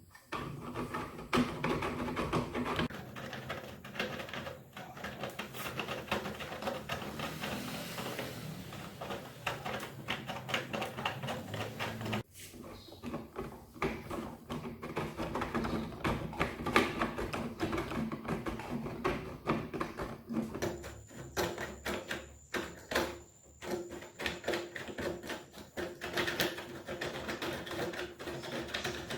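Dense, irregular clicking, tapping and rattling of small hard objects being handled and worked by hand, over a faint steady hum.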